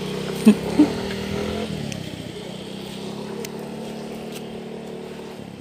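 A small engine running steadily, its hum dropping a little in pitch and fading away as it moves off. Two sharp knocks sound about half a second and about a second in.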